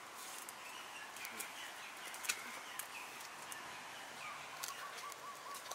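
Birds chirping, with a quick run of repeated short notes in the last second or so, over a steady outdoor background. Scattered sharp clicks come through it.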